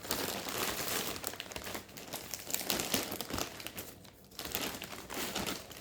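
Packaging crinkling and rustling as a mailed package is opened and handled by hand, with two brief lulls.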